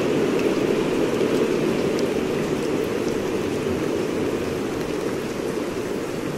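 Steady rain sound, an even hiss with faint scattered drop ticks. It is the masking track for a subliminal, meant to cover sped-up affirmations layered underneath.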